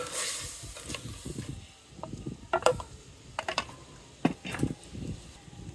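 A wooden spoon stirring raw crab pieces and spices in an aluminium pot, with shells scraping and clattering against the metal. This is followed by several sharp clacks a couple of seconds in.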